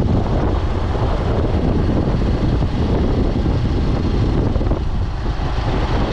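Wind rushing over the microphone of a camera moving at road-race speed: a loud, steady low rumble.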